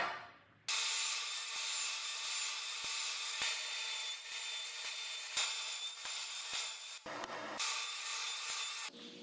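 A hand tool working wood: a steady scraping rub with faint, evenly spaced clicks, broken briefly about seven seconds in.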